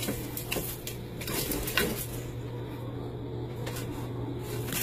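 A few light knocks and clatters in the first two seconds, the loudest near the end of them, over a steady low hum.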